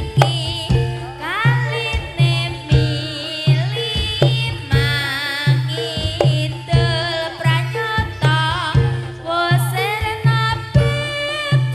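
Reog Kendang Tulungagung ensemble playing live: a steady pattern of low kendang drum strokes, about two a second, under a high, wavering melody line.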